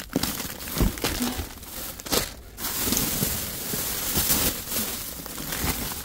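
Plastic bags and plastic-wrapped meat packages crinkling and rustling as a hand digs through them, with sharp crackles early and a denser stretch of rustling from about three seconds in.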